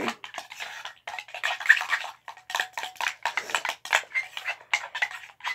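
Spoons scraping and clinking against a glass bowl and a ceramic bowl, stirring a glue-heavy slime mixture in quick, uneven strokes.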